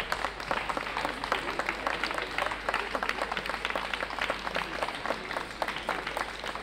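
A crowd applauding: many hands clapping in a dense, irregular patter.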